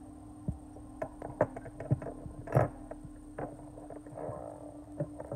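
Small screwdrivers and a phone being handled and set down on a tabletop: scattered light clicks and knocks, the loudest about two and a half seconds in, over a steady low hum.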